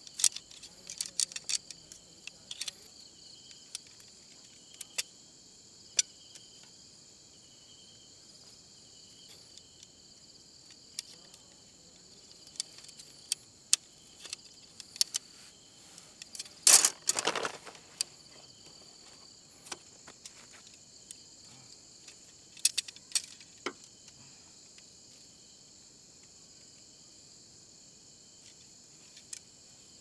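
Steady chorus of crickets, with scattered sharp clicks and clinks of things being handled and a louder clatter lasting about a second, a little past halfway through.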